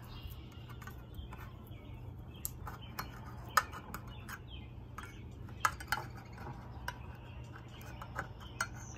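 Irregular small metallic clicks and scrapes of a homemade multitool can-opener blade being worked into the rim of a tin can.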